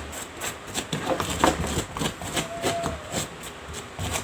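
Clicks, rustles and scrapes of hands and tools working in an electrical outlet box, cleaning out dirt around the taped wires, with a short squeak about two and a half seconds in.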